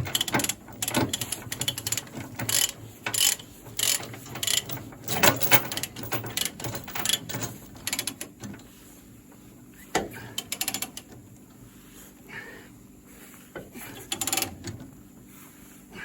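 Ratchet chain binder being cranked to tighten a tie-down chain: quick runs of pawl clicks, dense through the first half, then fewer and more spaced clicks.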